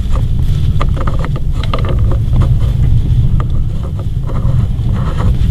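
A car engine running, a steady low rumble, with a few faint clicks over it.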